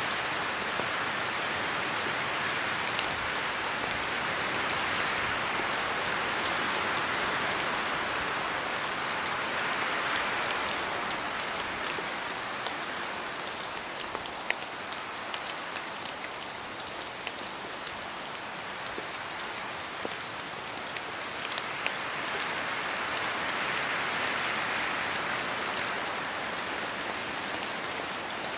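Steady rain with wind, the hiss swelling and easing over several seconds at a time, with scattered sharp drop ticks.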